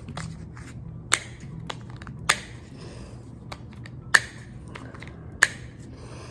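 Cold Steel Kyoto II fixed-blade knife clicking into and out of its stiff Secure-Ex plastic sheath: four sharp snaps a second or two apart, with smaller ticks of handling between.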